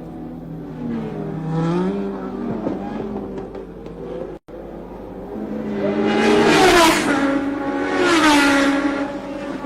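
1970s Formula One cars passing at racing speed, each engine's pitch dropping as it goes by. There is one pass about two seconds in, then two louder ones close together around six and a half and eight and a half seconds in. The sound cuts out for an instant about four and a half seconds in.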